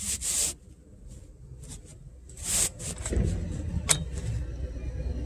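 Scratchy rustling of the phone being handled against fabric at the start and again about two and a half seconds in, with a click near four seconds. A low vehicle engine rumble builds from about three seconds in.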